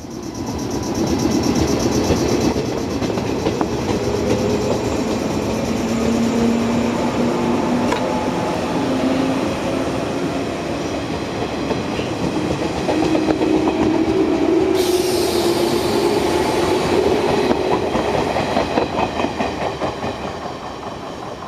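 A JNR 113-series electric train pulling away and accelerating. The hum of its MT54 traction motors rises in pitch in steps, and the wheels click rhythmically over the rail joints. A high hiss joins about fifteen seconds in and fades again.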